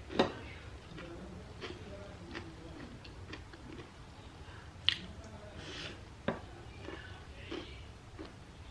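A person eating and chewing food close to the microphone, with soft crackles and a few sharp clicks, the loudest just after the start.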